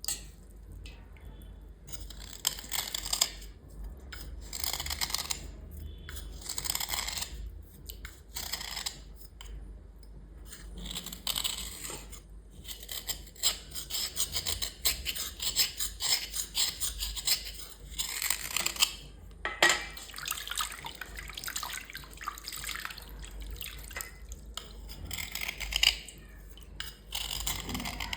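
Water splashing and trickling in uneven bursts as small items are washed by hand.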